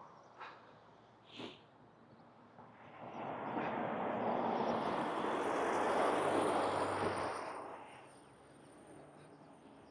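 A vehicle driving past on the road, its tyre and engine noise swelling and fading over about five seconds, loudest around the middle.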